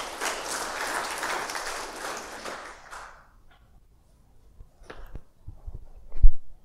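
Audience applause that dies away about three seconds in. It is followed by a few scattered dull thumps, the loudest near the end.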